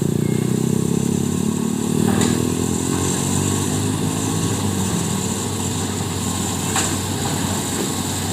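Excavator diesel engine running, easing off from a higher pitch in the first few seconds to a steadier, quieter run. Two faint knocks come about 2 and 7 seconds in.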